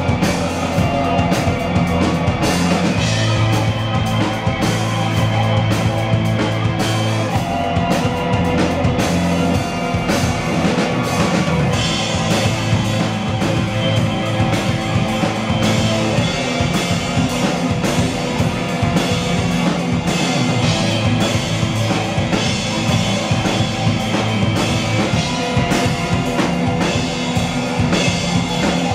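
Instrumental post-rock band playing live, with electric guitar, keyboard and a drum kit. Low bass notes hold and shift every few seconds under steady drum hits.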